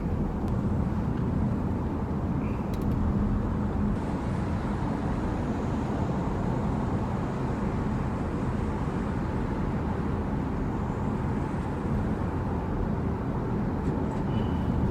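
Steady road and tyre noise with a low drone inside a Genesis GV70's cabin at expressway speed.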